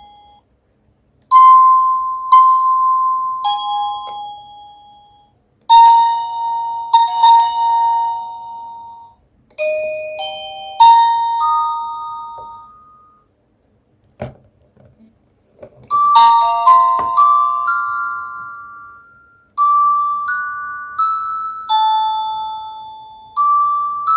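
Cacazi HYA10 wireless doorbell receiver playing its built-in ringtones one after another: about five short electronic chime tunes of a few seconds each, with a single sharp click in the gap about fourteen seconds in.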